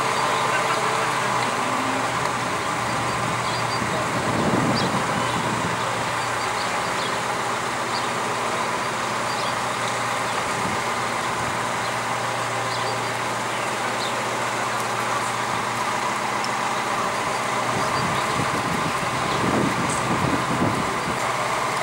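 Mobile crane's diesel engine running steadily as it hoists a heavy load, swelling louder briefly about four seconds in and again near the end.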